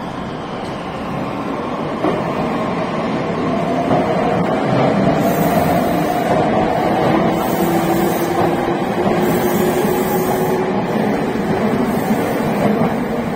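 Red Meitetsu electric train running into an underground station platform: traction motor hum and wheels on the rails, getting louder about two to four seconds in as it comes alongside, with humming tones that drift slightly in pitch.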